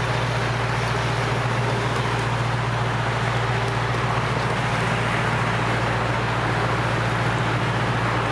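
Motor boat's engine running steadily with a low drone, under a constant hiss of wind and water.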